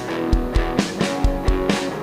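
Rock music with guitar over a steady drum beat.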